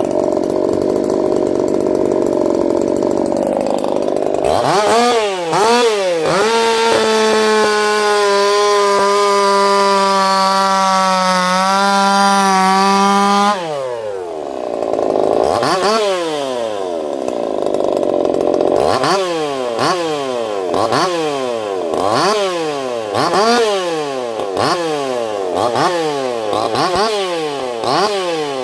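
Echo CS-4910 two-stroke chainsaw, fitted with a taper-top piston and crank swap, idling and then revved to full throttle. It holds high revs for about seven seconds with the pitch sagging slightly, as under load in a test cut. It drops back to idle and then takes a series of quick throttle blips, about one a second.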